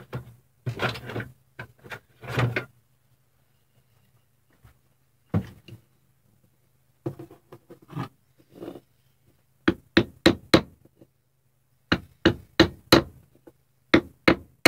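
Small hammer tapping a wooden block laid over a cigar box guitar's fretboard, seating fret wire into the fret slots. The taps come in quick groups of three or four in the second half, after some handling noise of wood and tools.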